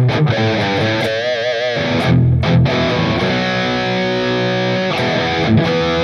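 Electric guitar played with high-gain distortion through a digital amp-modeling unit: quick picked notes, a note shaken with wide vibrato about a second in, then long held notes.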